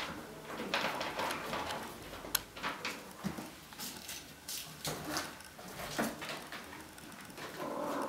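Bengal kittens scrambling and clawing over a carpeted sisal cat scratcher: scattered scratching, rustling and soft knocks.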